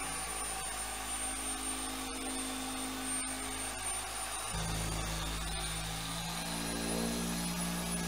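Electric power tool running steadily with a motor whine, its hum stepping to a different pitch and load about halfway through.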